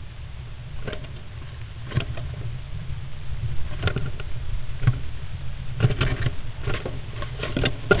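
Great spotted woodpecker shifting and preening inside a wooden nest box: irregular scratches, rustles and light knocks of its claws and feathers against the wooden walls and shavings, more frequent in the second half, over a steady low hum.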